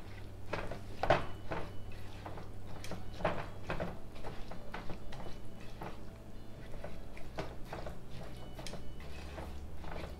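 Slotted spatula stirring thick chickpea masala in a nonstick pan: repeated scrapes against the pan and wet squelches of the mixture, about one or two strokes a second.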